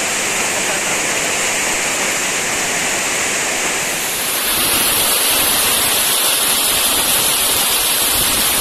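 Heavy rain and hail pelting down in a steady hiss; the sound shifts and grows slightly louder about four seconds in.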